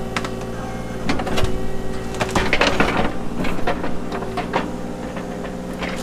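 Diesel engine of compact earth-moving equipment running steadily under work, with a series of sharp knocks and clanks from the machine's bucket and hydraulics working at the ground and wood. The knocks bunch together in the middle.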